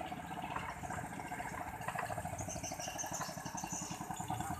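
Small stock engine of a katinting longtail boat running at a steady speed, its firing heard as a rapid, even pulsing.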